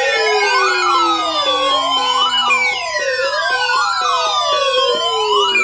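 Electronic siren-like alert tones: a wail rising and falling about once a second over several slowly falling tones that jump back up every three seconds or so, with steady tones underneath.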